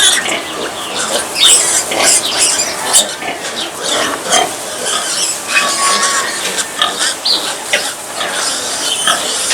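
A litter of piglets squealing and grunting together in a continuous, overlapping din, with short shrill squeals piercing through.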